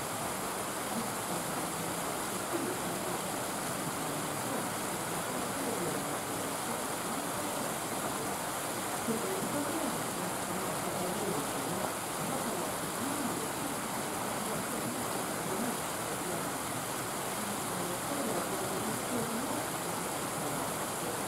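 Steady rushing background noise with a faint murmur of people's voices underneath.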